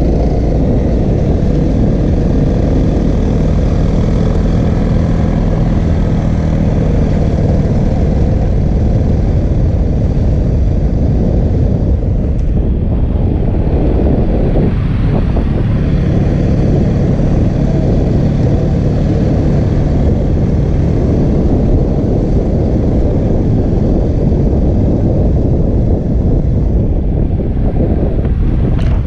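Honda CRF250L's single-cylinder four-stroke engine running steadily at trail speed, heard from the rider's helmet camera under heavy low wind rumble on the microphone.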